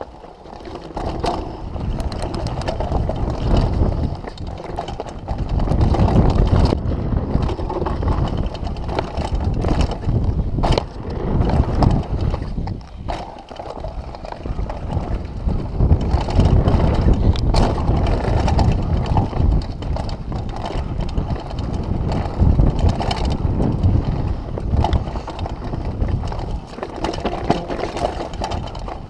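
Downhill mountain bike descending a dirt trail: a continuous rumble of tyres on dirt and wind, broken by frequent rattles and knocks from the bike over bumps.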